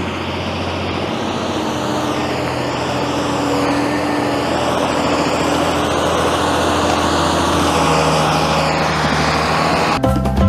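Heavy vehicle engine running steadily, slowly growing louder, with drum-led music starting right at the end.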